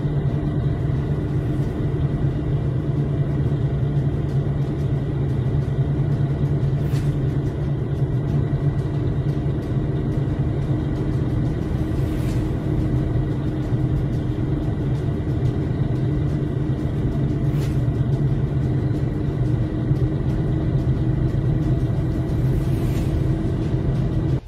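Vehicle engine running steadily, heard from inside the cab: a constant low drone that does not change in pitch or level.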